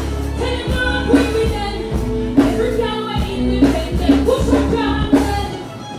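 A woman singing live into a microphone over a backing track with a deep bass line and a sharp hit about every second and a quarter. The music drops lower near the end.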